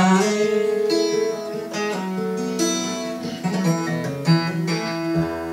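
Acoustic guitar playing live, picked notes and chords ringing in a melodic passage.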